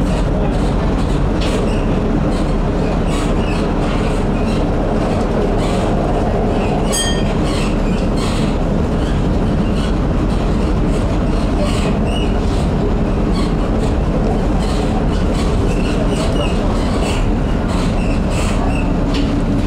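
Inside a running Brussels PCC-type tram (car 7819): a steady rumble of motors and wheels on the rails, with irregular clacks over the track. About seven seconds in there is a brief high-pitched tone.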